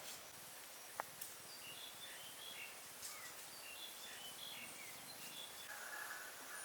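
Faint outdoor ambience with scattered short, high chirps and a single sharp click about a second in.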